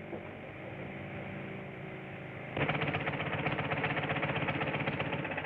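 A motor vehicle engine idling steadily. A little over two and a half seconds in, a louder engine sound cuts in, running with a fast, even putter.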